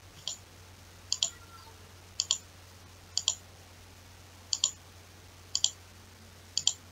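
Computer mouse button clicking, seven times about once a second, most clicks a quick double tick of press and release, as faces of a CAD model are Ctrl-clicked one by one to add them to a selection.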